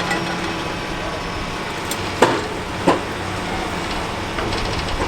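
A vehicle engine running steadily, with two sharp knocks a little over two and just under three seconds in and a few light clicks near the end.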